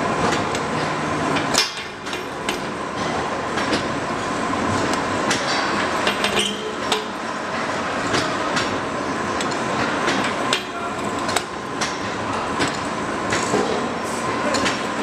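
Slotting machine cutting teeth into a large steel gear: a dense metallic clatter with frequent sharp clicks over a steady whine, dipping briefly about two seconds in.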